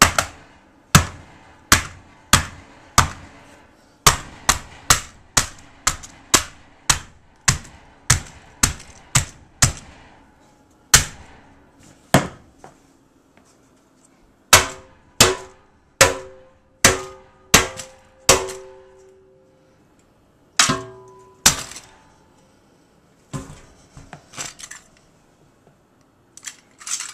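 A long series of sharp percussive hits, one or two a second and unevenly spaced. Some in the second half carry a short ringing tone.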